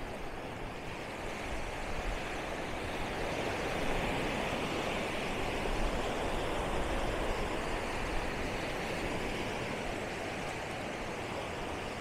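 Small waves washing up on a sandy beach: a steady rush of surf that swells a little in the middle and eases again.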